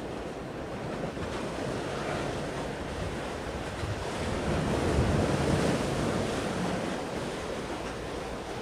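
A steady rush of wind on the microphone and sea, swelling into a louder, deeper gust for a couple of seconds about halfway through.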